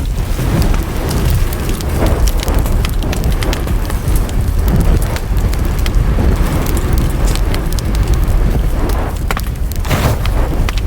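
Wood fire in a fireplace crackling: scattered sharp pops and snaps over a steady low rumble of burning, with a burst of louder pops near the end.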